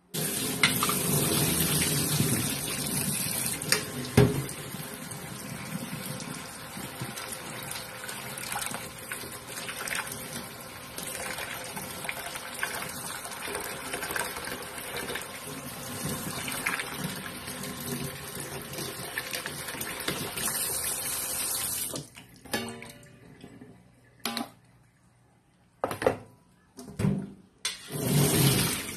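Kitchen tap running into a steel sink as sliced karrot root is rinsed in a metal colander: a steady flow that starts suddenly, has one sharp knock about four seconds in, and stops about 22 seconds in. A few short bursts of water or clatter follow near the end.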